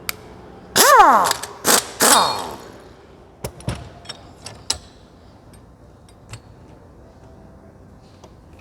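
Impact wrench fired in three short bursts, each whine falling in pitch as it spins down, while a shock-absorber strut is taken apart on the bench. A few light metallic clicks and knocks follow.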